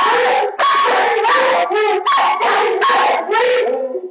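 Dog barking rapidly and loudly, a steady run of about two barks a second.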